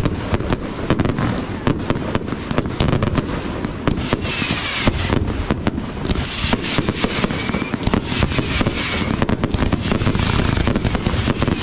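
Fireworks display: a dense, continuous barrage of bursting aerial shells, many bangs a second over steady crackling. A few faint whistles are heard now and then.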